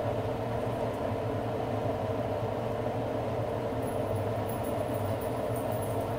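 Steady mechanical hum with a constant low drone, with faint light ticking joining in about four seconds in.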